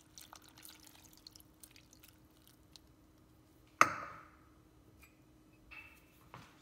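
Cold water poured from a ceramic bowl into a blender jar, trickling and dripping onto bread and vegetables. About four seconds in, a single sharp knock, the loudest sound, as the bowl is set down on the wooden board, and a smaller knock near the end.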